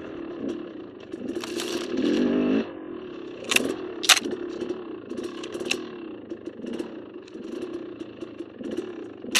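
KTM dirt bike engine running on the trail, revving harder for about a second around two seconds in, with scattered sharp knocks and clatter, two loud ones just before halfway.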